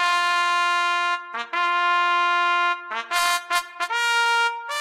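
A solo brass horn plays a slow call: two long held notes on the same pitch, a quick run of short notes, then two higher held notes.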